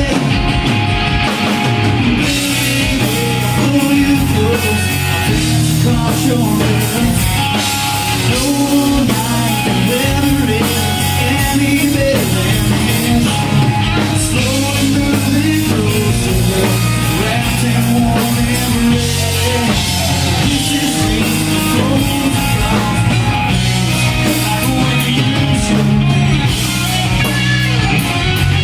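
Live southern rock band playing an instrumental passage, with electric guitar lines over bass and drum kit.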